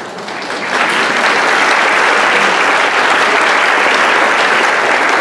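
Large audience applauding, swelling about a second in and then holding steady.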